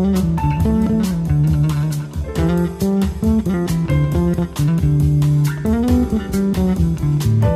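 Instrumental background music: plucked guitar and bass over a steady beat.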